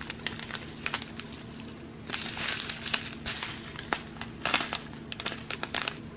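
A strip of small plastic zip-lock bags of diamond-painting drills crinkling as it is handled, in irregular crackles and clicks, busiest about two seconds in.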